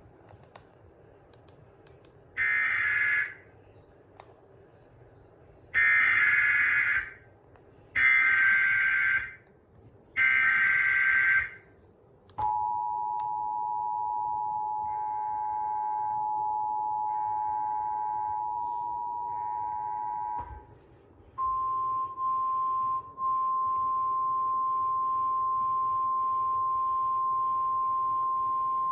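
Emergency Alert System signalling. Four roughly one-second bursts of harsh, buzzy SAME digital header data come first. Then the two-tone EAS attention signal holds steady for about eight seconds, with fainter data bursts beneath it. After a short gap, a single steady NOAA Weather Radio alert tone begins, announcing the new severe thunderstorm warning.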